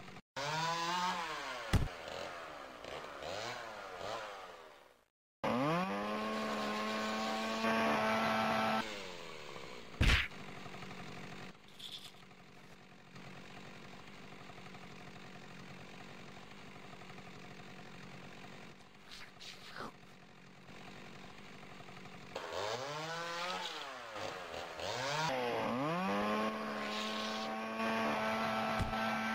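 Chainsaw revving: the engine note sweeps up and holds steady at full throttle for a few seconds. This happens twice, with a quieter stretch between, broken by one sharp knock about ten seconds in.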